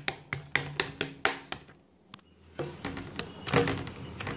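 Wooden spatula knocking and tapping against a steel plate while pressing and spreading a thick peanut barfi mixture: a quick run of sharp taps, a short pause about two seconds in, then a few more taps.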